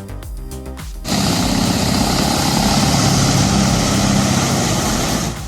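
Background music for about a second, then a sudden cut to a loud heavy wood chipper running, a steady dense noise over a low engine drone, which stops just before the end.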